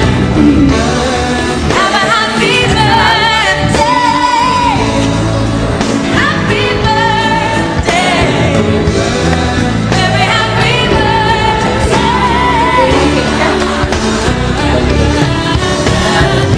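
A song playing: a singer's voice with wavering held notes over instrumental backing.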